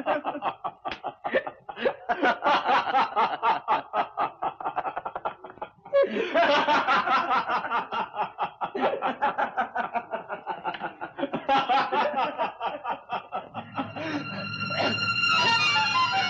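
Two men laughing long and hard in fast, repeated bursts of laughter. Music with plucked strings comes in near the end.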